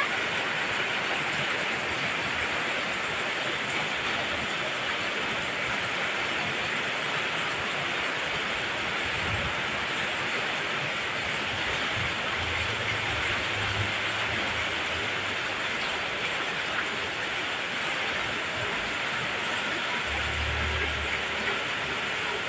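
Heavy rain pouring down, a dense, steady hiss. Brief low rumbles come twice, about halfway through and near the end.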